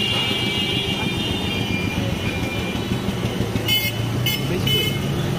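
Street traffic with a vehicle engine running steadily, and three short horn toots about four seconds in.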